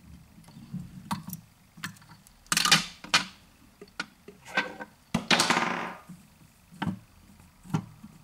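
Hands handling tools at a fly-tying vise: scattered clicks and taps, with two louder short rustling noises about two and a half and five seconds in.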